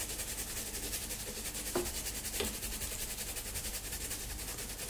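A toothbrush scrubbing back and forth over the twisted wire of an antique sword grip: a fast, even brushing hiss, with two small ticks near the middle. The gentle scrub is cleaning dirt off the wire and brightening it.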